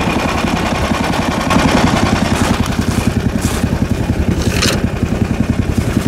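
Small engine of a tracked snow vehicle running, a rapid, even chugging that gets a little louder about one and a half seconds in.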